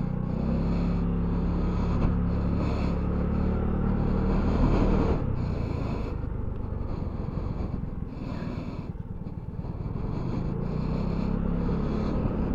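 Vespa Primavera S 150 scooter's single-cylinder four-stroke engine pulling away and running at low road speed. It eases off about five seconds in and again near nine seconds, then picks up again.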